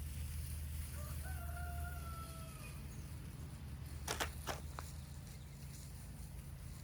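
A rooster crowing once, faint, starting about a second in and lasting about two seconds, over a low steady rumble; two faint clicks follow a little later.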